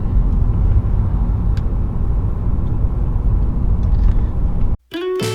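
Steady low road and engine rumble of a car driving, heard from inside the cabin. Near the end it cuts off abruptly and music starts.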